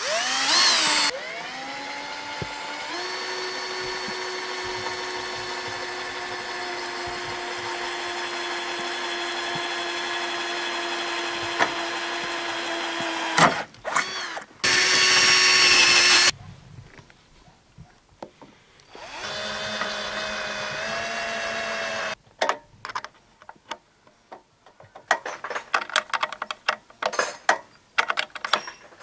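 A 12 V cordless drill running at a steady whine, spinning up at the start and held for about thirteen seconds. It then runs twice more: a short, louder burst and a run of about three seconds. Scattered light clicks and knocks follow near the end.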